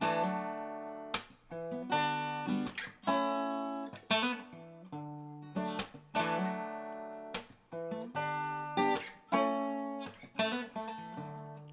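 Acoustic guitar strumming chords, each chord struck and left to ring and fade before the next, with short breaks between, picked up by a studio condenser microphone.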